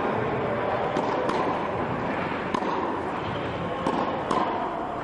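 Tennis rally: about five sharp pops of racket strokes and ball bounces, two of them close together twice, over a steady background hiss.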